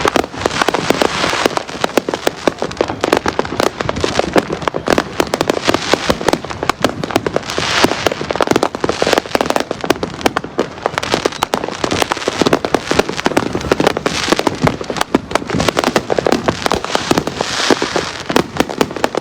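A dense barrage of consumer fireworks going off all around, with many overlapping bangs in rapid succession and no let-up.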